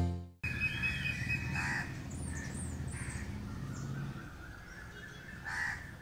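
Crow cawing twice, about two seconds in and again near the end, with a few faint high chirps of small birds between the calls.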